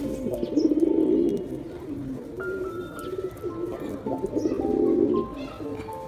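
Male domestic pigeon's courtship cooing: throaty, pulsing coos in about three bursts, the loudest near the start and about five seconds in. Background music with steady held notes plays under it.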